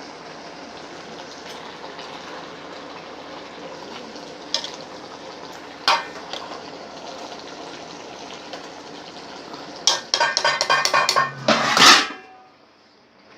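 Food frying in a pan with a steady sizzle, with two sharp knocks of cookware in the middle, then a quick run of metal utensil clinks against a pot or pan near the end, after which the sizzle drops away.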